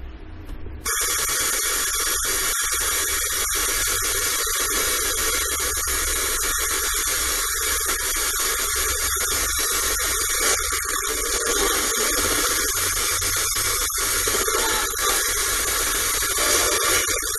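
Livstar portable radio hissing with static, as heard while it is tuned between stations; the hiss comes on suddenly about a second in and is broken by brief dropouts throughout.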